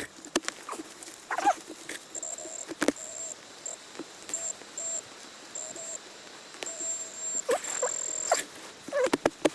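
Metal detector giving short steady beeps, with two longer, louder tones near the end, among scattered clicks and knocks.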